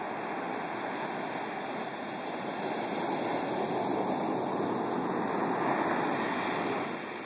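Storm-surge waves breaking and washing up a sandy beach: a steady rush of surf that swells about two and a half seconds in and begins to fall away near the end.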